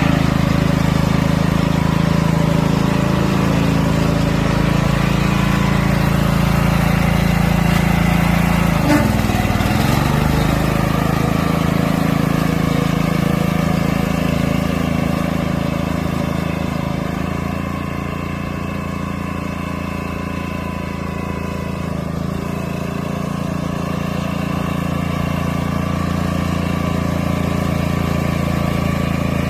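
Small engine of a Canycom four-wheel riding carrier running steadily as it drives along. About nine seconds in, the engine pitch drops sharply and climbs back.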